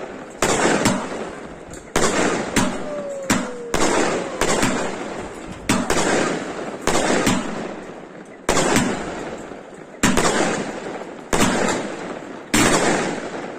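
Consumer fireworks battery (a salute cake) firing shot after shot. There are about a dozen sharp bangs, roughly one a second, and each dies away in a fading tail.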